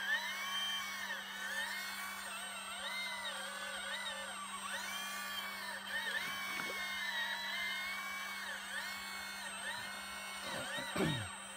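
Radio-controlled hydraulic model excavator digging: its pump motor and hydraulics run with a whine that rises and falls in pitch over a steady low hum as the arm works, with a sharp falling sweep near the end.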